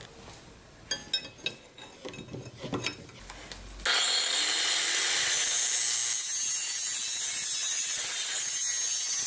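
A few light clicks and taps of a steel knife blade being handled on a metal plate, then about four seconds in a handheld angle grinder switches on and runs at full speed, its pitch rising as it spins up. The disc is spinning free, not yet grinding the 52100 bearing-steel blade.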